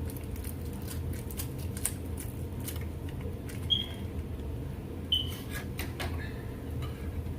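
Scattered light clicks and taps of utensils on dishes, with two short ringing clinks, one about halfway through and one a second and a half later, over a steady low hum.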